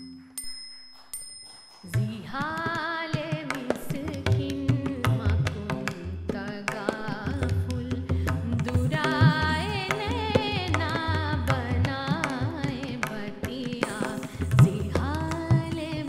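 Indian classical music accompanying a dance: a couple of light bell-like strikes, then from about two seconds in an ornamented, gliding melody over a steady low drone with tabla strokes.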